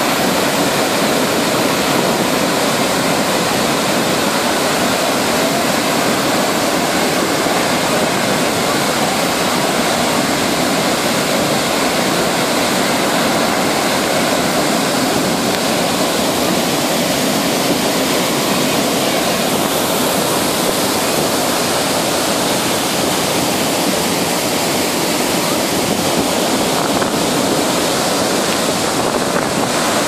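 Athirapally Falls in heavy flow: the loud, steady rush of a broad waterfall's water crashing down onto the rocks, unchanging throughout.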